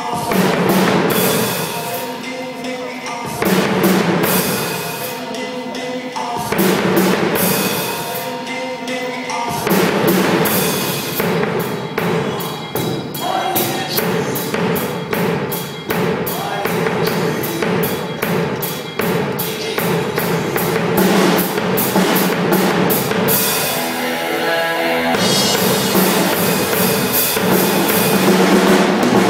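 Drum kit played live: kick drum, snare and cymbals in a steady groove, with short breaks between phrases in the first ten seconds and a busier run of fast hits after that.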